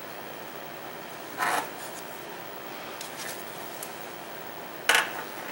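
A computer motherboard handled and turned over on a bench mat, with a short scrape of board on the bench about a second and a half in, a few faint ticks, and a louder scrape near the end.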